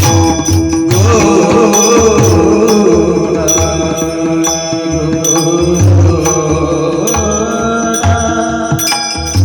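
Pakhawaj drumming in a steady rhythm with repeated deep bass strokes, under a sustained melodic accompaniment.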